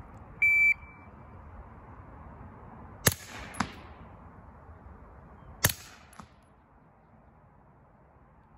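A shot timer's start beep, then two shots from a suppressed Grand Power Stribog SP9A3 9mm carbine about two and a half seconds apart. Each shot is a sharp crack followed about half a second later by a fainter second crack.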